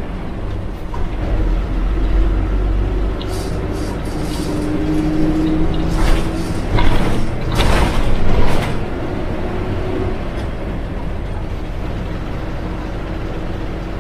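Yangtze River city bus with a front-mounted engine, running steadily and heard from inside the bus. About six seconds in comes a cluster of short hissing bursts lasting until about eight and a half seconds in, the loudest part.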